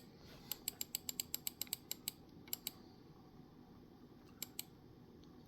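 Computer mouse clicking: a quick run of about a dozen scroll-wheel clicks in the first two seconds, then two pairs of single clicks later on.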